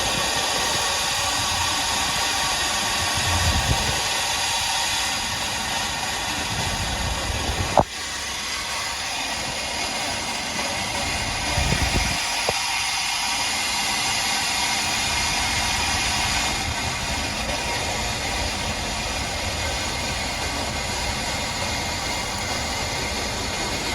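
Steady static hiss of a received broadcast signal between alerts, with a sharp click about eight seconds in.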